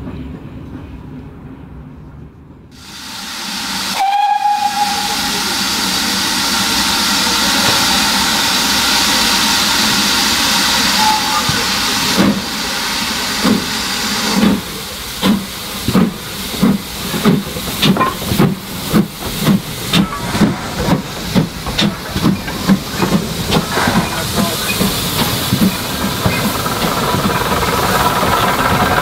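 GWR small Prairie tank locomotive 5542 hissing steam, with a brief whistle note about four seconds in. It then starts away, its exhaust beats slow at first and quickening to about two a second.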